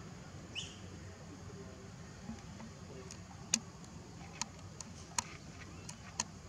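Six or so sharp, very short ticks scattered through the second half, over a steady low outdoor rumble, with one brief high rising squeak about half a second in.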